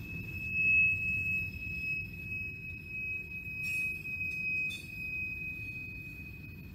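Freight train's covered hopper cars rolling past with a steady high-pitched wheel squeal, loudest about a second in, over a low rumble of the wheels on the rails. Two sharp clanks come near the middle.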